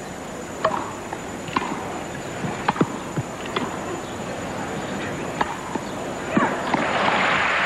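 Tennis rally on a grass court, with racket strikes on the ball about once a second and the last one a smash. Crowd applause swells near the end as the point is won.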